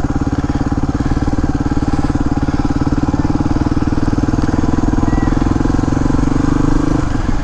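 Suzuki DR250S single-cylinder four-stroke engine running at low, steady revs through a Dominator R aftermarket exhaust, an even rapid chug. It builds a little and then eases off near the end.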